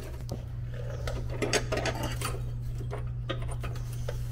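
Small clicks, scrapes and rustles of hands working among cables, metal linkage and packed pine needles and sticks on a riding mower's deck, over a steady low hum.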